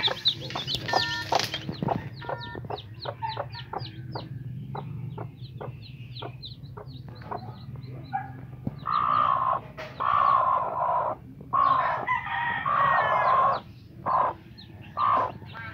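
Newly hatched chicks peeping: many short, high, falling chirps. From about nine seconds in, an adult chicken gives a run of loud, drawn-out calls in four or five pieces, then a few shorter ones.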